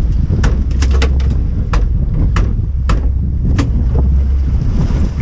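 Small outboard boat under way at sea: a loud, steady low rumble of wind buffeting the microphone and the running motor, with a string of sharp, irregular clicks and knocks on top.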